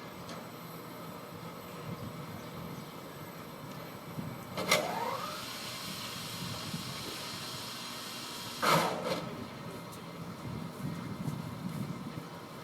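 Sling boat hoist machinery starting with a clunk and a rising whine about a third of the way in, running for about four seconds, then stopping with another loud clunk.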